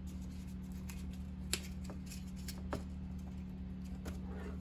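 Hands handling an LED fog light pod and its metal mounting bracket, making scattered light clicks, taps and rustles, over a steady low hum.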